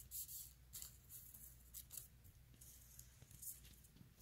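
Near silence with faint, brief papery rustles of fingers rolling a thin fondant rope on parchment paper, over a low steady room hum.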